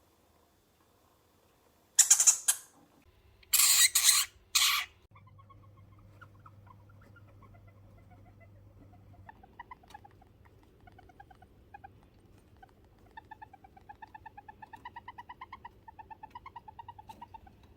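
Djungarian hamster vocalizing: four short, loud, harsh rasping bursts about two seconds in, then a long series of quick pulsed squeaks in rapid runs that grow busier toward the end.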